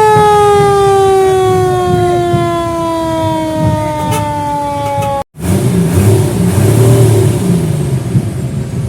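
Fire truck siren sounding one long tone that falls slowly in pitch. About five seconds in it cuts off abruptly and is followed by an irregular, noisy rumble.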